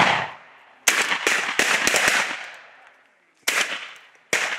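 A string of shotgun blasts: three loud shots in quick succession about a second in, then two more near the end, each trailing off in an echo.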